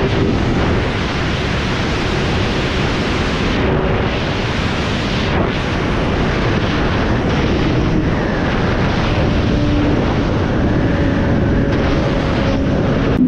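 Heavy wind rushing over the microphone on a sport bike at high speed, with the Honda CBR1000RR's inline-four engine faintly audible underneath as a steady drone.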